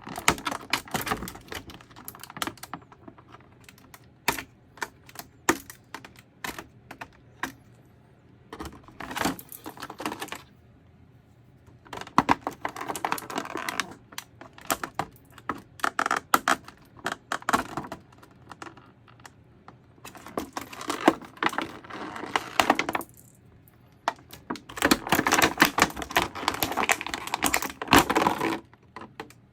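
Hands handling an action figure and its plastic and cardboard packaging: a run of sharp clicks and taps, with several stretches of louder rustling and scraping.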